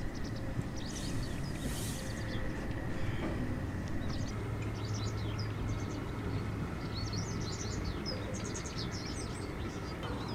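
Outdoor ambience: small birds chirping and twittering in quick, irregular high calls over a steady low rumble.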